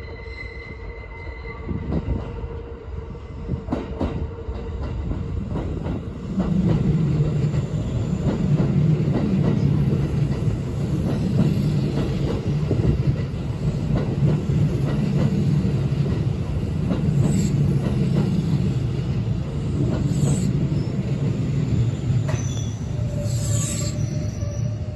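Kintetsu 80000 series "Hinotori" electric train running in along the platform. It gets louder as it draws near and passes close by, wheels clattering over the rail joints under a steady low hum. Brief high squeals come near the end.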